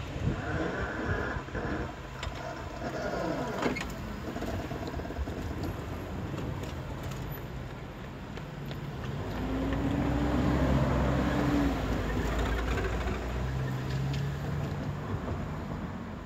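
Outdoor trackside noise just after an electric commuter train has passed: the last of its rumble dies away in the first seconds, leaving a steady low rumble of distant rail and road traffic that swells briefly about ten seconds in.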